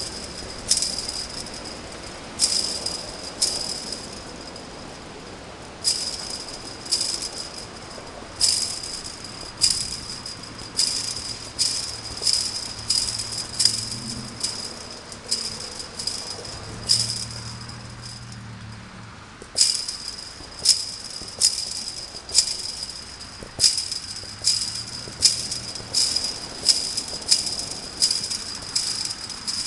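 Repeated kicks striking a chain-link fence, each hit setting the wire mesh jangling briefly. There are about thirty strikes, roughly one a second, with two short pauses.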